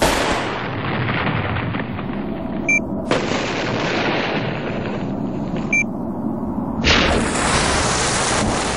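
Television static hissing in three stretches, each starting abruptly. Two short electronic blips mark the breaks as the channel is switched.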